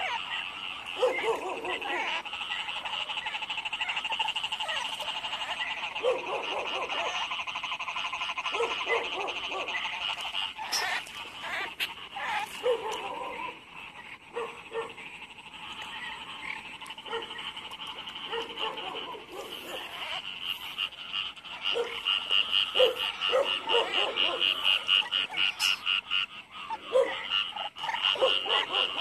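Chorus of rice-paddy frogs calling after heavy rain: a dense high trilling that pulses rapidly, with short lower croaks scattered through it. The pulsing grows louder over the last several seconds.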